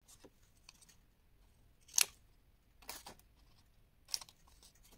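Small pointed scissors snipping through cardstock: several short, sharp snips, the loudest about two seconds in.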